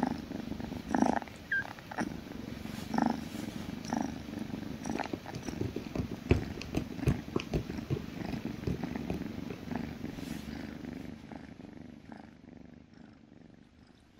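Tabby kitten purring steadily while being stroked, a low rumbling purr close to the microphone, with some rubbing of hand on fur. The purr fades out over the last few seconds.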